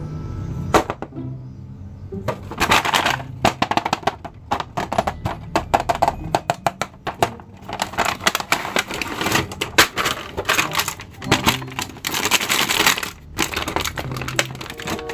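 A cardboard toy box and its clear plastic packaging being handled and opened as an action figure is unboxed, giving sharp clicks and several bursts of crinkling crackle. Soft background music plays underneath.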